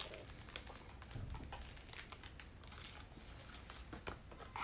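Faint scattered small clicks and light rustling over a low steady hum.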